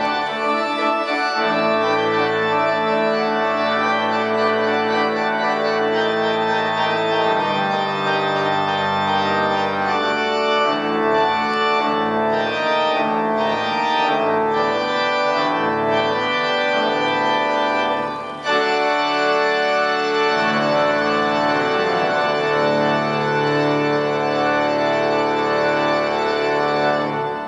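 Church organ playing a toccata in full, sustained chords over a heavy bass, with a brief break about eighteen seconds in. The final chord is released at the very end.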